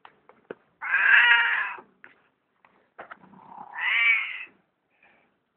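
A domestic cat meowing twice: a long, loud meow about a second in, then a second one that rises and falls in pitch.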